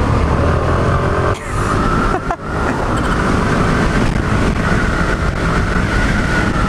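Suzuki Burgman Street 125 scooter running at speed, about 50 to 80 km/h, its engine mixed with wind and road noise on the handlebar microphone. A steady whine sits over the rushing noise, with brief dips in level about one and a half and two and a half seconds in.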